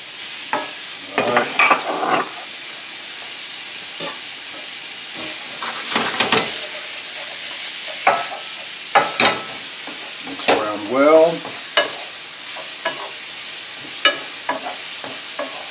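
Sliced peaches sizzling in a hot skillet of butter and brown sugar while a wooden spoon stirs them, knocking and scraping against the pan again and again over the steady sizzle.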